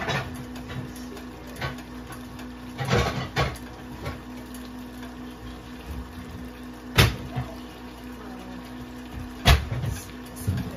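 Pots and cookware knocking and clattering as they are handled: several sharp knocks, the loudest about seven seconds in and again near the end, over a steady low hum.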